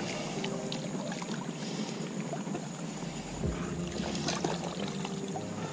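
Steady outdoor lakeside ambience with a low rush like wind on the microphone, a faint hum underneath and a few small clicks from handling the line.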